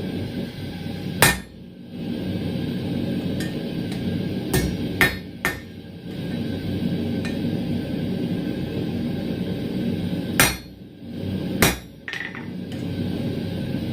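Hammer blows on the steel tong blanks at the anvil, marking them out: about six sharp strikes, three of them in quick succession around five seconds in, over a steady low background noise.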